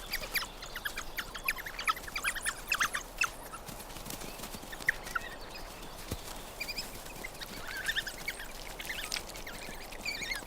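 Coyote pups squeaking and yelping, many short high-pitched calls in quick clusters.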